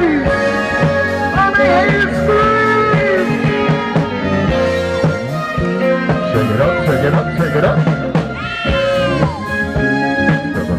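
Live band playing rock music with a steady drum beat.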